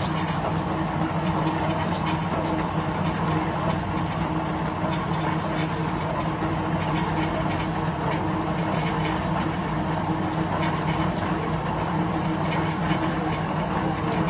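Electric concrete floor grinder running steadily, its diamond polishing pads grinding across a concrete floor, with a steady low hum and a thin high whine.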